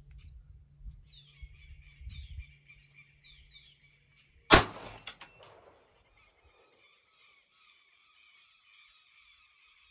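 A single 9mm pistol shot from a Taurus G3, about four and a half seconds in, firing a handload of 4.4 grains of Imbel Tucano powder under a 125-grain Morigi bullet. Birds chirp around it, with short falling chirps before the shot and a steady trilling after it.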